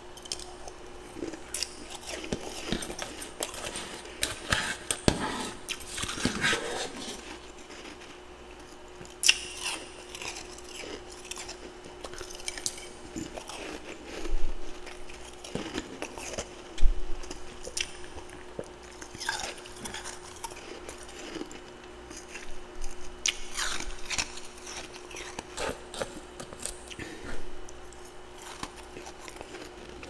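Crunching and chewing mouthfuls of freezer frost in irregular crisp bursts, with a metal spoon scooping the frost in the bowl now and then.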